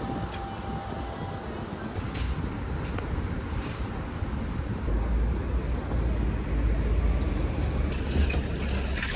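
Street traffic noise beside a busy road, with a low vehicle engine rumble building about halfway through.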